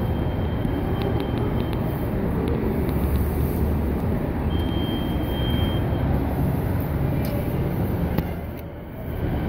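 A Compass card reader on a transit fare gate gives one steady high beep, about a second and a half long, as a card is tapped, over a steady low rumble.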